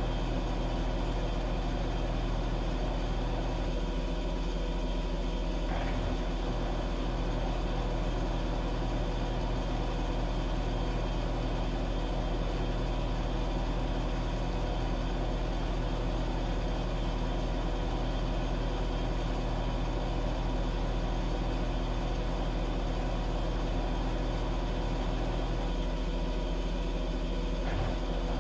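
Washing machine running with a steady mechanical hum made of several steady tones over a deep low drone. Twice, about four seconds in and again near the end, part of the lower hum drops away for a couple of seconds.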